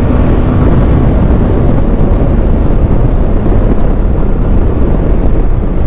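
Loud, steady wind rush and road noise from a motorcycle at about 100 km/h, picked up by a microphone in the rider's helmet, with the Yamaha R15's engine drone underneath.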